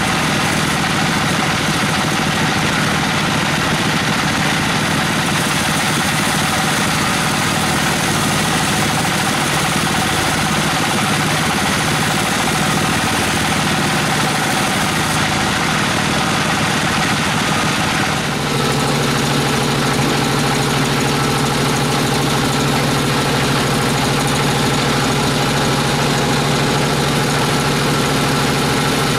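Band saw sawmill running while cutting a wangkal (Albizia procera) log, its drive making a steady mechanical drone with a hiss of cutting on top. About two-thirds of the way through, the sound shifts to a steadier, lower hum.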